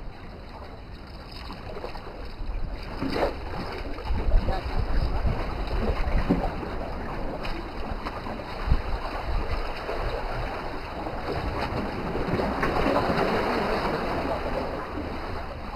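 Wind blowing across the microphone with a low rumble, over the wash of small sea waves against a rocky shore.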